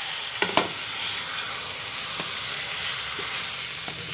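Potatoes, fenugreek leaves and freshly added chopped tomatoes sizzling steadily in hot oil in a steel kadhai. A spatula clicks against the pan a couple of times about half a second in as the stirring begins, with fainter taps later.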